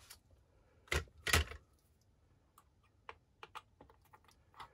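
Hands handling the plastic parts and wiring of a radio-controlled buggy's chassis: two solid knocks about a second in, then a run of small, irregular clicks and taps.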